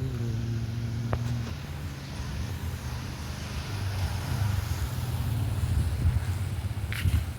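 A motor vehicle engine running with a low, steady rumble, its pitched hum fading after about a second and a half into a rougher rumble.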